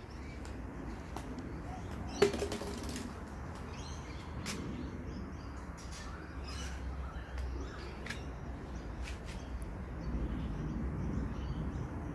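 Open-air ambience: birds chirping now and then over a low steady rumble. One sharp knock about two seconds in.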